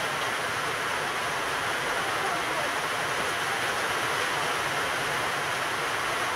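Steady, even rushing noise with no distinct knocks or clicks.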